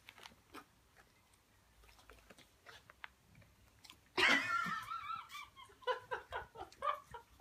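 Faint clicks and mouth sounds, then about four seconds in a person bursts into loud laughter that breaks into a run of short laughs.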